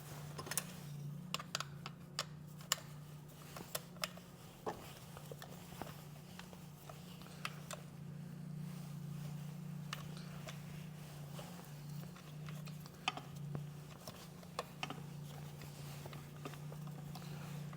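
Scattered, irregular metal clicks and taps of hand tools on a motorcycle's shift linkage and its bolts as they are fitted and tightened, over a steady low hum.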